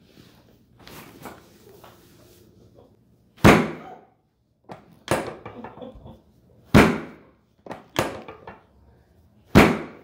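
Chiropractic drop table's sections dropping under thrusts on the lower back: five loud thumps about a second and a half apart, some with a small knock just before.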